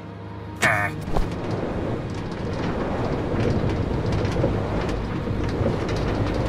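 A short cry about half a second in, then a steady low rumbling noise with scattered crackles.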